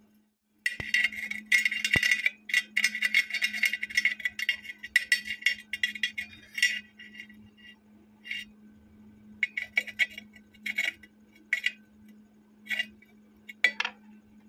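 Stick-welding arc crackling and sputtering as a coated electrode builds up weld around a hole in steel box section: a nearly continuous run of about six seconds, then a series of short strikes of a second or less each. A steady low hum runs underneath.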